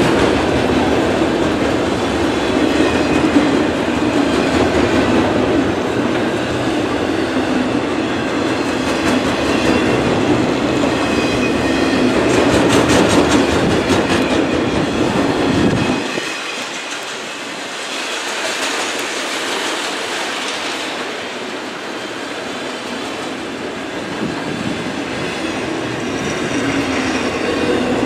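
Freight cars of a long CN manifest train rolling past, wheels clicking over the rail joints with some wheel squeal. The deep rumble drops away suddenly a little past halfway, leaving a lighter rolling sound.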